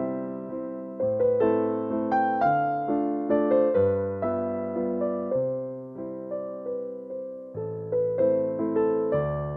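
Background piano music: gentle chords and a melody, with new notes struck about once a second and each fading away.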